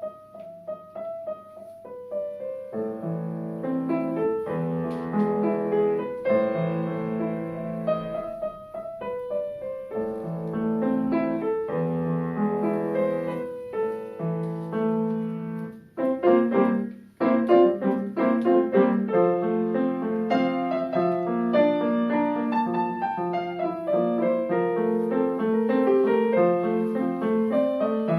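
Solo piano playing a classical piece: a melody over repeated chords, with a short break about sixteen seconds in before the playing picks up again.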